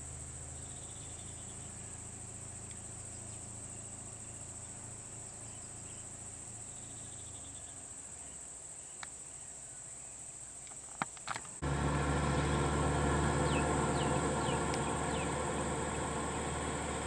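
Steady high-pitched insect drone over a low engine hum, with a few sharp clicks; about eleven and a half seconds in the sound cuts abruptly to a louder steady engine idling, an auto-rickshaw's, with a few short bird chirps over it.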